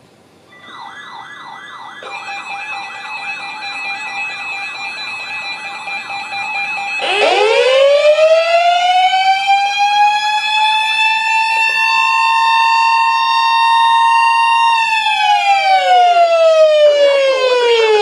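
Several NOAA weather radio receivers sounding their alert alarms together for a Special Marine Warning: warbling and steady beeping tones start about half a second in, and about seven seconds in a loud siren tone joins, rising, holding, then falling away near the end.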